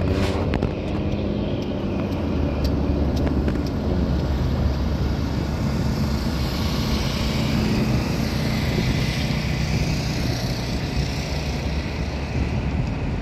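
Car driving slowly on a paved road: a steady engine hum and tyre noise, with a few light clicks in the first few seconds.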